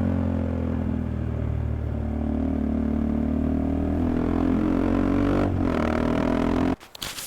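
Motorcycle engine running steadily, its pitch sagging slightly and then picking up again, before it stops abruptly near the end. A few sharp clicks follow.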